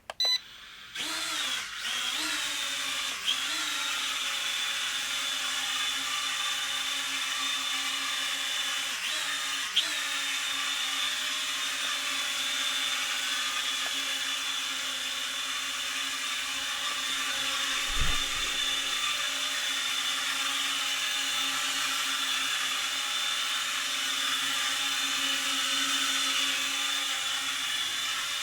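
Small toy quadcopter's electric motors and propellers spinning up about a second in, then running with a steady high buzzing whine as the drone flies. A few light knocks come through the whine.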